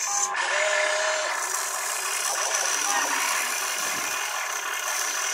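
RC excavator's small electric motors and gearboxes whining as it slews and raises its loaded boom. The whine steps in pitch as movements start and stop, over a steady high hiss.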